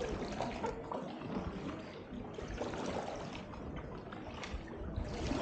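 Double-bladed paddle strokes in calm water beside an inflatable canoe: water trickling and dripping off the blades, with light splashes and lapping, under a stone arch.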